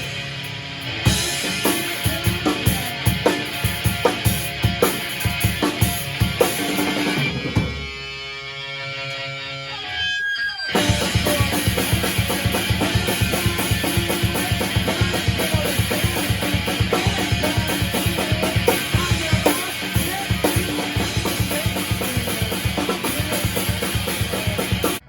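Rock music with a drum kit (kick and snare) and guitar. About seven seconds in the drums drop out, leaving a few seconds of held chords, then the full band comes back in and cuts off abruptly at the end.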